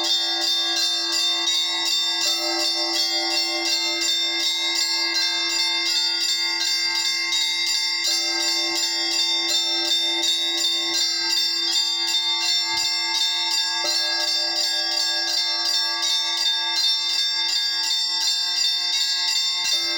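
Russian Orthodox church bells rung by hand in a continuous peal (zvon): quick, even strikes of several higher bells over the unbroken hum of a larger, low bell.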